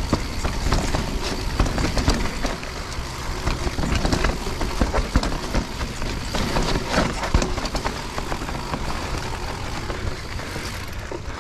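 Mountain bike riding down a rough trail: tyre noise and a dense, uneven rattle of the bike's chain and frame over bumps, with wind rumbling on the microphone.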